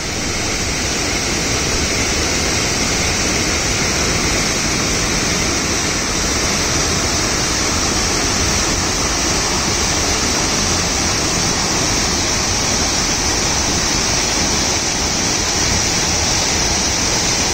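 Stream water rushing steadily over a low stone weir, a continuous loud splashing cascade.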